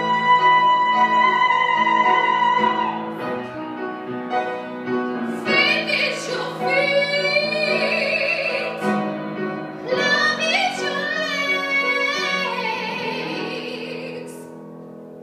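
A woman singing a solo song over instrumental accompaniment, holding one long high note at the start, then further phrases with vibrato on the held notes, the sound trailing off near the end.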